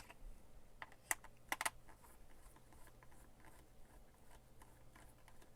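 Light clicks and taps from handling a plastic diffuser housing and its loose bottom screws: one click about a second in, then a quick pair of clicks, over a faint steady hum.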